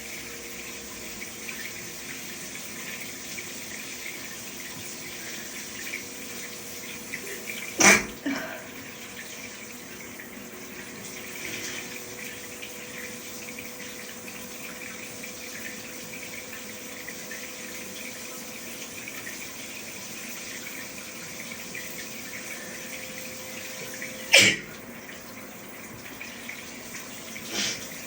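Shower running steadily, broken by two loud sneezes about sixteen seconds apart, set off by allergies.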